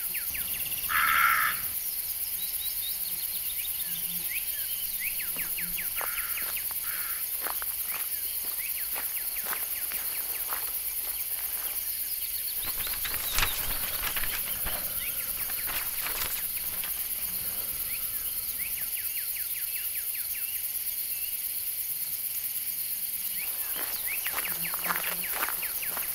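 Woodland ambience: a steady high insect hiss like crickets with scattered bird chirps, and a louder raven call about a second in. A few short crackles come around the middle.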